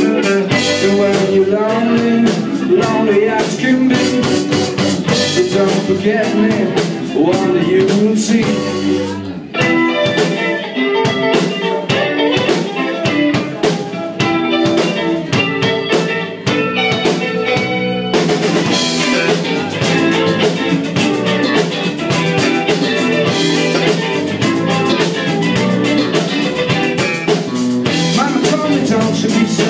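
Live band playing: male vocals over electric guitars, bass guitar and drum kit. The singing drops out about nine seconds in for an instrumental stretch, and the band comes in fuller with cymbals about eighteen seconds in.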